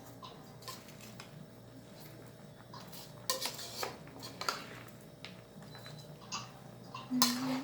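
A metal utensil clinking and scraping against a pan as food is stirred, in scattered knocks with a couple of longer scrapes, one about three seconds in and one near the end.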